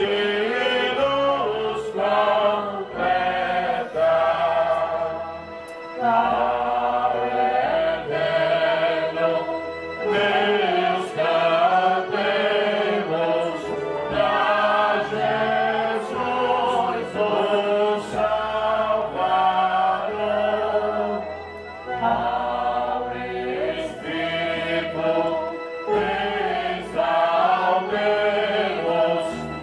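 Voices singing a slow hymn together, over low held accompaniment notes that change every second or two.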